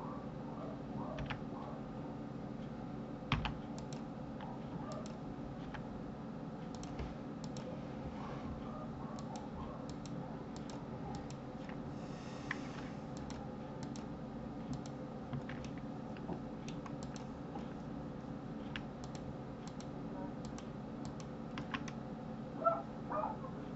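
Irregular, scattered clicks of a computer keyboard and mouse, over a steady low hum.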